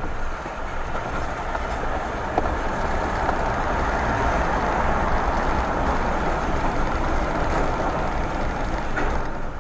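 Car tyre and road noise heard from inside the car as it rolls down a concrete ramp into an underground parking garage: a steady rushing rumble that swells about two seconds in and then holds.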